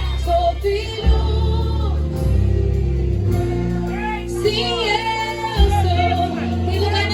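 Gospel song with a female lead vocal over heavy, sustained bass, played loud on a car audio system with amplifier modules.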